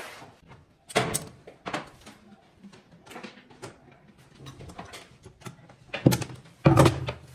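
Irregular knocks and clunks of a wooden drawer box being handled and fitted, with light scraping between them; the loudest are two heavy thuds near the end.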